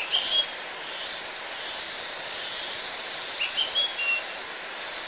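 Short high whistled chirps, a couple at the start and a quick run of them about three and a half seconds in, over a steady outdoor hiss.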